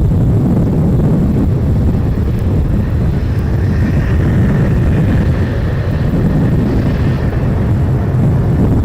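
Jet airliner passing close overhead: a deep rumble throughout, with a higher engine whine that swells about two seconds in and fades away a few seconds later. Wind buffets the microphone.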